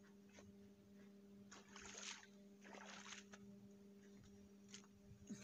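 Faint splashing of shallow river water as a person wades out: two soft swishes about two and three seconds in, with a steady low hum underneath.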